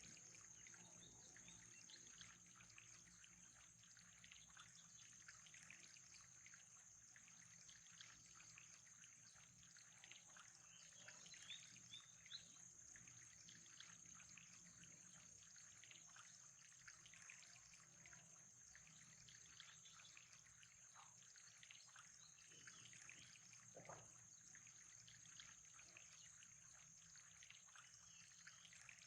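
Faint trickling water, with a steady high-pitched whine.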